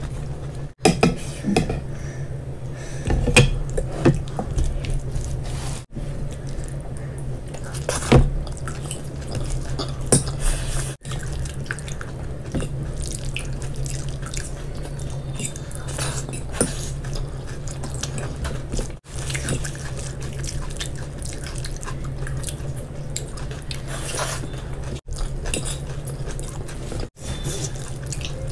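Close-miked eating sounds: wet chewing and mouth sounds, with fried rice squelching as it is mixed into gravy by hand and a fork clicking on a plate now and then. A low hum runs underneath, and the sound drops out briefly several times.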